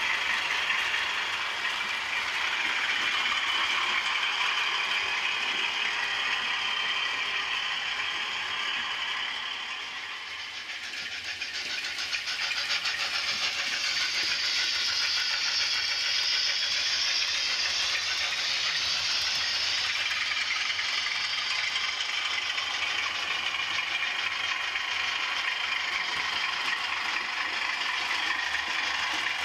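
Model train running along the layout's track, pulling a rake of bogie wagons loaded with logs: a steady fine rattle and clatter of small wheels on the rails and the mechanism. It drops away briefly about ten seconds in, then comes back up and runs on steadily.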